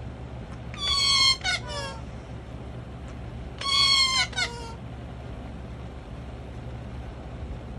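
Parrot calling: two bursts of high, squeaky calls, each about a second long, around one second in and again around four seconds in.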